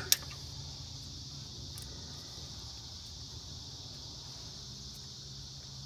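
A single sharp metal click just after the start, from the socket wrench turning the screw extractor as it backs the broken bolt out. Under it, a steady high chirring of crickets and a low hum.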